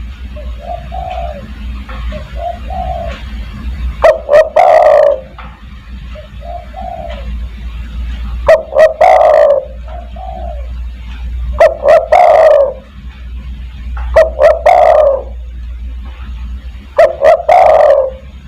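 Spotted dove cooing over and over, a loud phrase about every three seconds with softer coos between them, as on a bird-luring recording. A steady low hum runs underneath.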